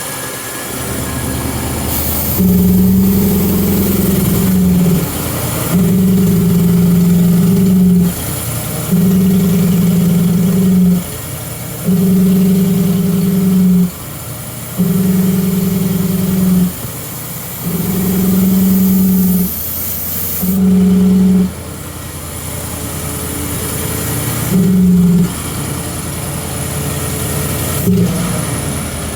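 Rebuilt Ford 351 small-block V8 on an air compressor running cold. It surges to a louder, steady-pitched note for a couple of seconds at a time, over and over, as the throttle butterfly is opened and closed. The surges grow shorter and fewer near the end.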